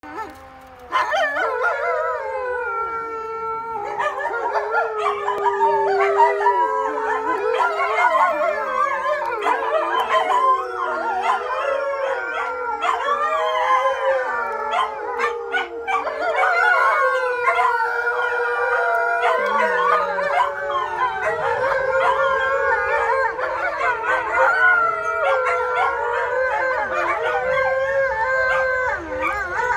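Several dogs howling together in a chorus, their overlapping voices at different pitches wavering up and down the scale. The howl starts about a second in.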